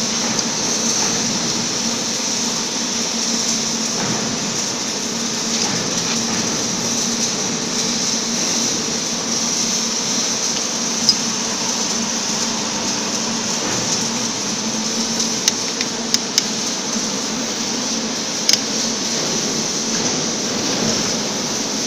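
Steady hum and hiss of workshop machinery, with a few sharp metallic clicks from the bevel plasma torch head being handled and adjusted: a single click about halfway through, a quick cluster of three a few seconds later, and one more near the end.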